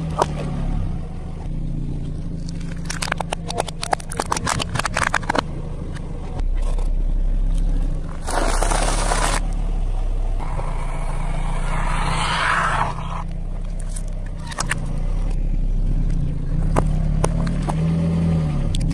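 A car's tyre crushes plastic yogurt cups and breadsticks on asphalt, with a steady engine hum underneath. There is a quick run of sharp crackles about three to five seconds in, then a longer stretch of crunching from about ten to thirteen seconds.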